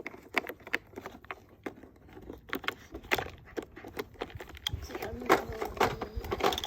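Plastic toy lawn mower clicking and rattling irregularly as a puppy paws and chews at it. The clicks are sparse at first and come thicker and louder from about halfway through.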